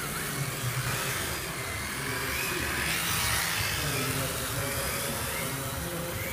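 Electric motors of two MST FXX-D RC drift cars whining as they rev up and down through the corners, under background music.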